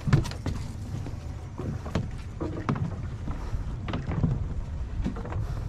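Steady low rumble aboard a small fishing boat at sea, with a few faint knocks and distant voices scattered through.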